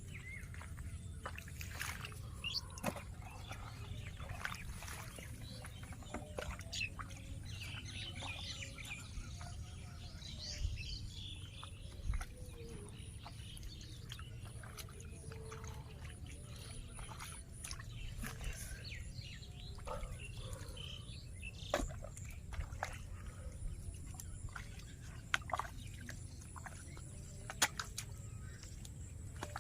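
Outdoor rural ambience: birds calling now and then over a steady low rumble, with scattered sharp clicks.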